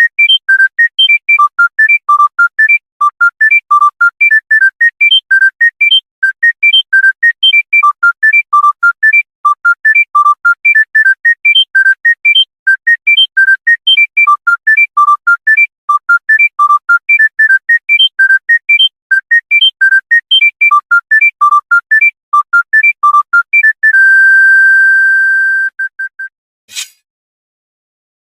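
Monophonic mobile phone ringtone: a fast beeping melody of short single notes, about four to five a second, ending on one long held beep about two seconds long, followed by a brief click.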